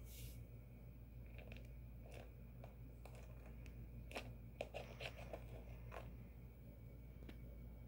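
Faint scattered clicks and light scrapes of a spoon on a small plate, clustered in the middle few seconds, with one more tick near the end. A steady low hum runs underneath.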